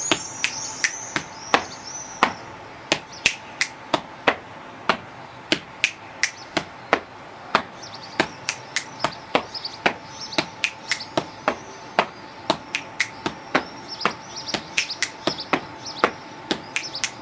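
Body percussion: finger clicks, hand slaps on the chest and stamps of the feet, played as a repeating rhythm of sharp strikes, about two to three a second. Birds chirp in the background.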